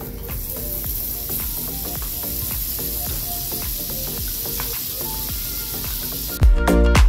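Butter sizzling as it melts and bubbles in a hot frying pan, a steady high hiss with a few light clicks. Loud background music comes back in near the end.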